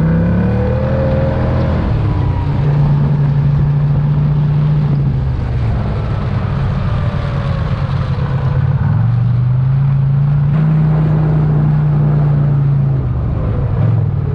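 A motor vehicle's engine running, rising in pitch as it speeds up at the start and again about nine seconds in, then holding a steady hum.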